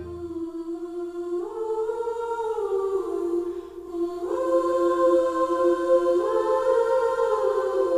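A slow tune hummed by voices in close harmony, with long held notes that step to new pitches together every second or so.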